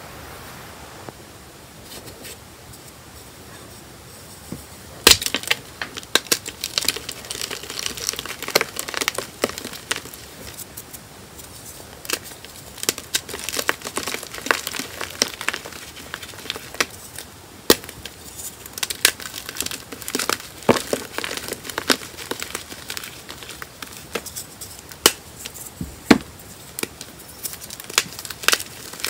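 Blocks of gym chalk being snapped and crushed by hand: sharp cracks and dry crunching, with fragments and powder crumbling between the fingers. After a few seconds of faint hiss the breaking starts about five seconds in, with a loud first crack, and goes on in irregular snaps and crumbles.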